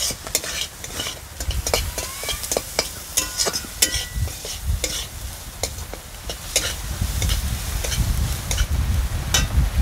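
Sliced onions, garlic, chilli and ginger frying and sizzling in hot mustard oil, with a spatula repeatedly scraping and clicking against the pan as they are stirred to brown.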